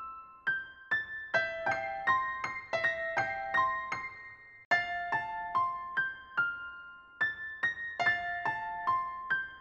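Background music: a slow, gentle melody of single ringing notes in a repeating phrase, with a brief break about four and a half seconds in.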